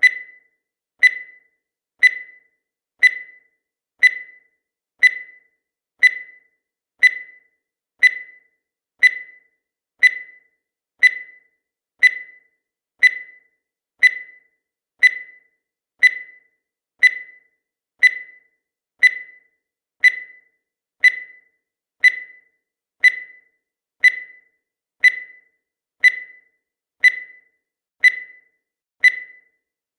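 Countdown timer sound effect: a short, high electronic beep once every second, each one fading away quickly, evenly spaced and unchanging throughout.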